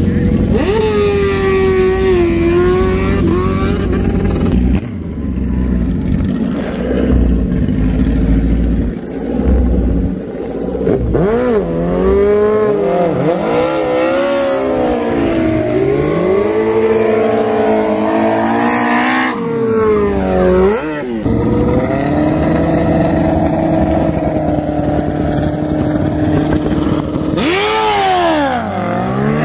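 Sport motorcycle engines idling and being revved, several at once, their pitch rising and falling again and again, with a deep dip and climb in revs near the end.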